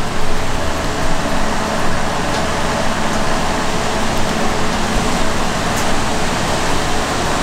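Steady whir of running machinery, like a fan or motor, with a low hum and a higher held tone that do not change.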